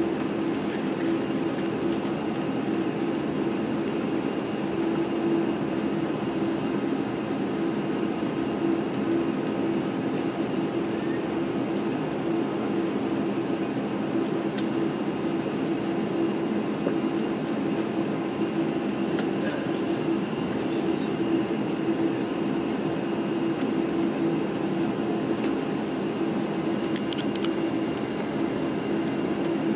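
Cabin noise inside a Boeing 747-8i taxiing: its GEnx engines at low taxi power and the cabin air system making a steady, even hum with a few steady tones, no surge or change.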